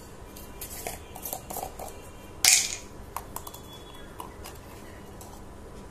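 Small clicks and taps of a spoon and kitchen containers being handled, with one short, louder noise about two and a half seconds in.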